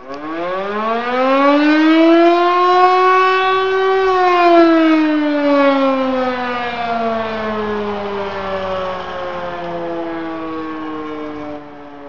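E57 electric motor siren sounding a short test wail (the 'Probe' signal). It winds up to full pitch within about four seconds, then slowly winds down, its pitch still falling at the end. Its tone is somewhat dark.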